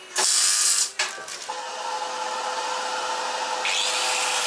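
A power tool running: a short burst of hiss, then from about a second and a half in a steady whine over a hiss, which grows brighter near the end.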